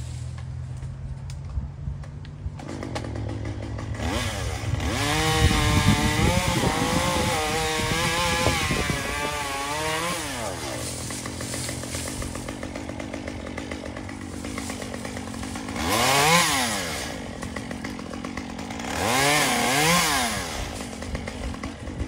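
Gas chainsaw engine revving: a long run of about six seconds with the pitch wavering up and down, then two short rev-ups in the second half.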